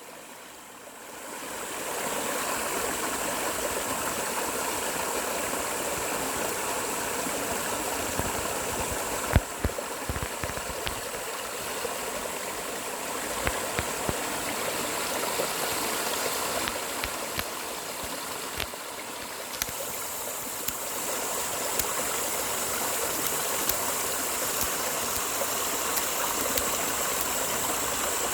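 Mountain valley stream flowing over rocks: a steady rushing, gurgling water sound that swells up over the first two seconds and then holds even. A few small clicks sound through it, the sharpest about nine seconds in.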